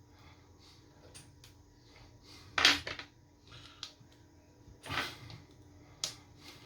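Small hard clicks and taps of tools against the plastic parts of a Nintendo Switch Joy-Con controller being taken apart, with three louder clicks: about two and a half seconds in, near five seconds, and near the end.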